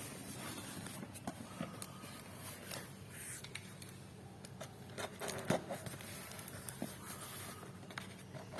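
Handling noises: scattered light clicks, taps and scrapes, with a few louder knocks about five seconds in, over a faint steady hum.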